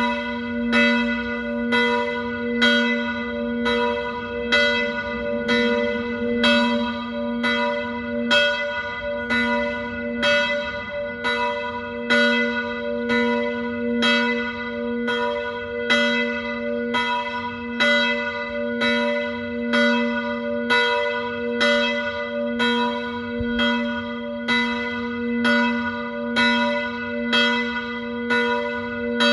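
Church bells ringing in a peal: an even, unbroken run of strokes, about three every two seconds, over a low hum that rings on between them.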